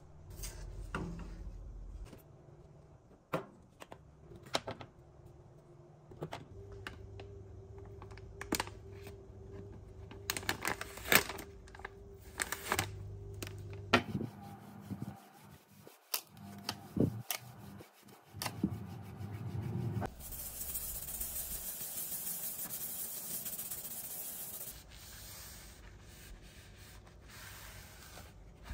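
Kitchen work sounds: scattered knocks, clinks and rubbing, with a low steady hum for several seconds in the first half and a steady hiss lasting about five seconds in the second half.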